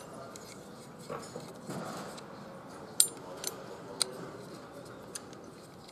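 A few sharp metallic clicks and taps of a hand tool being set onto a part seated on a polished engine shaft in an assembly fixture. The loudest click comes about three seconds in, with two more within the next second, over a low hiss of workshop air.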